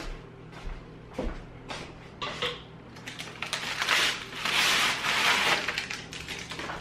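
A few light knocks, then parchment paper crinkling and rustling loudly for a couple of seconds as it is pulled out from under a baked sourdough loaf on a wire cooling rack.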